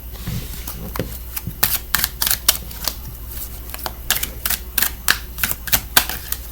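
A deck of oracle cards being shuffled by hand: a quick, irregular series of sharp card snaps, a few each second.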